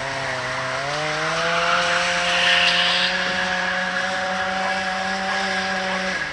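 Engine of a race-track lure winch running, its pitch rising about a second in as it speeds up, then holding steady before cutting off abruptly near the end.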